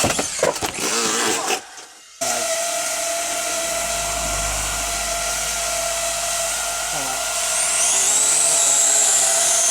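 Small electric motors and propellers of a cheap toy quadcopter drone spinning up to a steady whine that holds one even pitch, starting after a brief break about two seconds in; a thin higher whine wavers in near the end.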